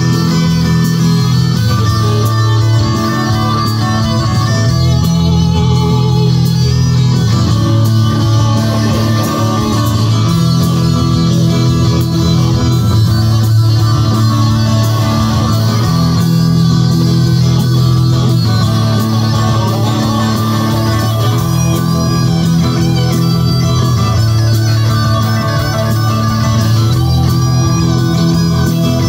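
Live rock band playing, led by electric guitar through an amplifier, loud and steady.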